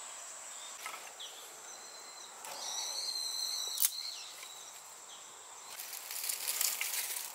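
Dry vine stems and twigs rustling and crackling as they are handled for fire tinder, loudest near the end, over a steady high insect drone. About two and a half seconds in, a bird gives a high call lasting about a second, followed by a sharp snap.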